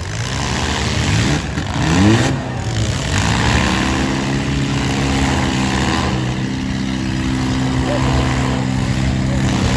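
Four-cylinder demolition derby car's engine revving in a couple of rising sweeps, then held at high revs with a steady drone while the car still moves under power.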